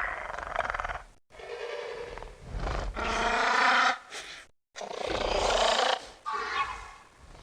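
A series of roar- and growl-like creature sound effects, three or four in a row, each cut off abruptly by a brief dead silence.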